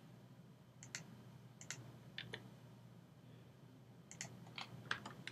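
Several sharp, irregularly spaced clicks from a computer mouse and keyboard, quiet over a faint steady low hum.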